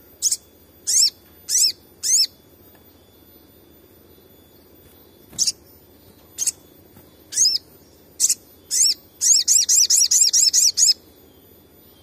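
Olive-backed sunbird calling with sharp, quick sweeping chirps. They come singly, a second or so apart, with a pause of about three seconds, then a rapid run of about ten near the end.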